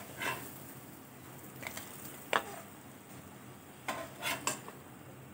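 Metal spatula scraping and tapping in a non-stick frying pan as shallow-fried corn cutlets are lifted out, about six short taps and scrapes in all, over a faint sizzle of oil.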